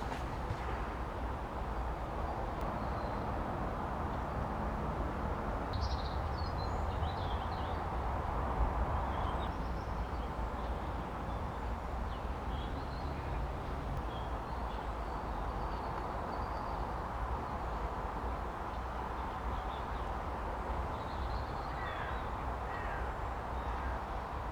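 Birds chirping here and there over a steady low outdoor rumble.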